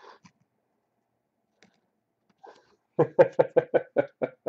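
A man's quick chuckle, a run of about ten short, even pulses at roughly seven a second, in the last second and a half after near silence.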